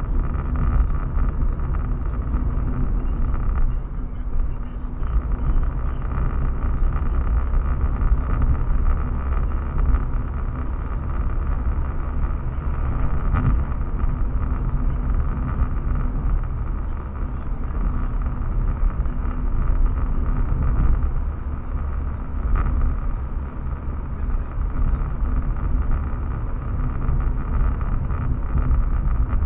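A car driving steadily along a road, its engine and tyres making a continuous low rumble.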